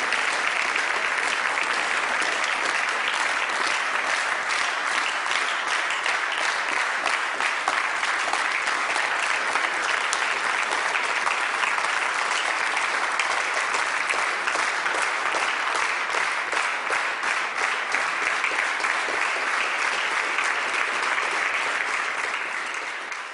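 Audience applauding steadily with many hands clapping, the applause dying away near the end.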